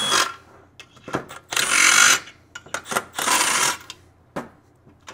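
Cordless power screwdriver running in three short bursts, backing the screws out of a backpack blower engine's muffler, with small clicks of metal parts being handled between them.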